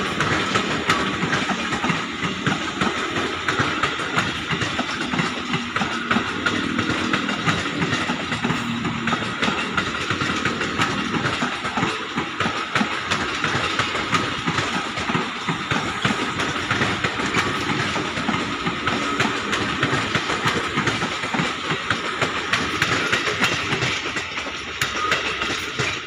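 KRL Commuter Line electric multiple unit running past on the nearby track, a continuous rumble of wheels on rail with many rapid clattering clicks over rail joints. It eases off near the end as the last car goes by.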